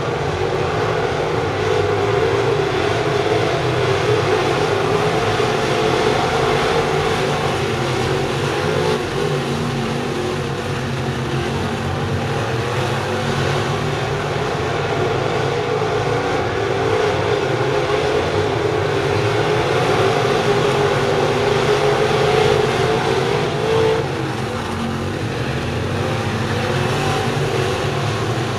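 A field of FASTRAK crate late model dirt cars racing, their crate V8 engines running together in a steady, wavering drone that eases briefly near the end.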